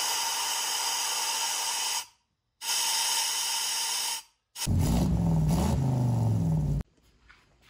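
Compressed-air blow gun hissing in three blasts of about two seconds each into a cylinder head's exhaust port, the last one rougher, with a low rumble and a hum. It is an air leak check of a freshly lapped exhaust valve seat.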